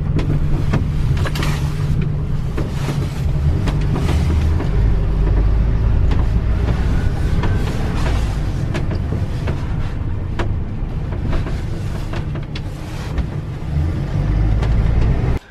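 Road noise inside a moving vehicle's cab: a steady low engine and tyre rumble with scattered clicks and knocks from the cab.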